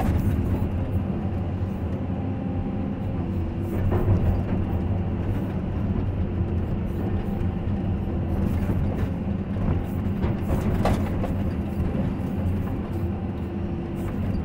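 Caterpillar 320 hydraulic excavator's diesel engine running steadily, heard from inside the cab, its note shifting slightly as the hydraulics move the bucket. A few short knocks come as the bucket works against a wooden pole to scrape off clinging mud.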